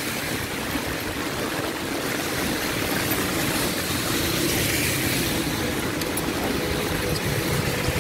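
Strong typhoon wind buffeting the microphone with a fluctuating low rumble, over the steady hiss of heavy rain on a wet street.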